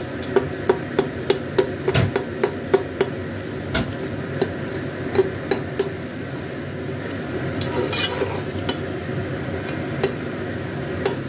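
Metal spoon stirring and clicking against the side of a pressure cooker while beef, tomatoes and spices sizzle in oil at the frying (bhuna) stage. The clicks come often in the first half and thin out later.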